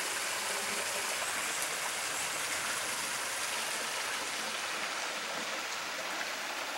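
Steady rushing hiss of running water from a spring, even and unbroken.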